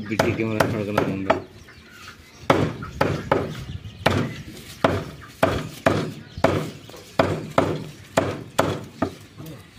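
Heavy meat cleaver chopping chicken pieces on a wooden log chopping block: sharp thwacks about two a second, with a short pause early on before the chopping resumes.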